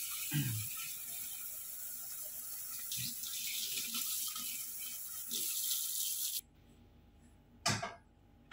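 Kitchen tap running water into a cooking pan for about six seconds, then shut off suddenly; a single knock about a second later as the pan is set on the gas stove.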